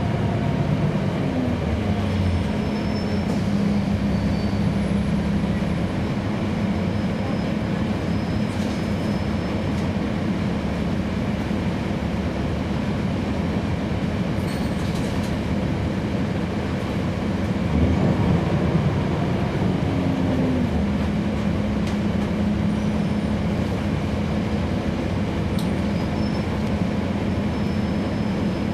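Cummins ISL9 diesel engine of a NABI 40-SFW transit bus heard from on board, running with a steady drone. The engine note shifts in pitch a few times, with a slight swell in loudness a little past halfway. Faint short squeaks and rattles sit above it.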